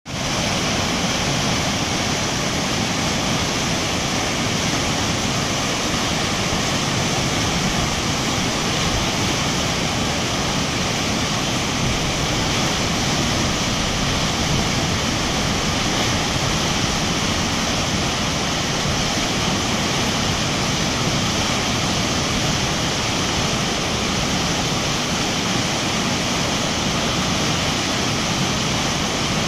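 Whitewater river rapids rushing and churning over boulders: a steady, loud wash of water.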